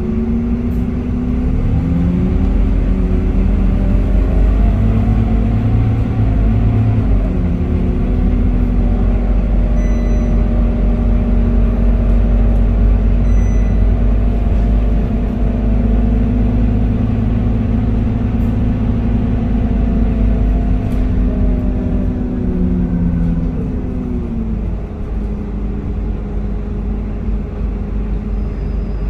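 Scania K230UB bus's rear-mounted diesel engine heard from inside the passenger cabin under way, with a heavy low rumble. The engine note climbs as the bus accelerates, drops once and climbs again, holds steady for a long stretch, then falls away near the end as the bus eases off.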